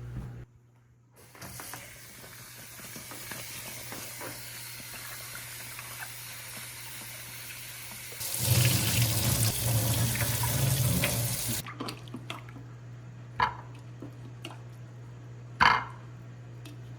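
Kitchen tap running into a sink while produce is rinsed under it, the flow getting louder for about three seconds in the middle and then shutting off. Two short sharp knocks follow near the end.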